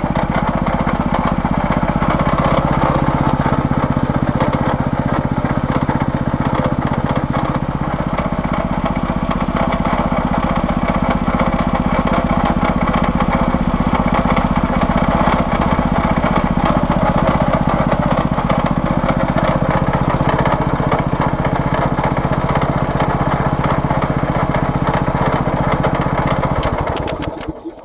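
Champion 212cc single-cylinder four-stroke engine on a new 22-inch rototiller running steadily, with a noise the owner calls bad and takes for a defect in the brand-new machine. It shuts off and winds down near the end.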